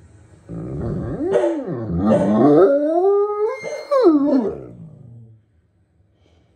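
A Great Dane howling: a long, wavering howl whose pitch slides up and down, starting about half a second in and trailing off a little after five seconds.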